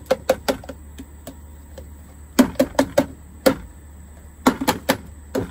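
Clear plastic food container rapped against a plastic bucket to knock the last kitchen scraps out: sharp plastic clicks and knocks in quick clusters of three to five, about a second apart.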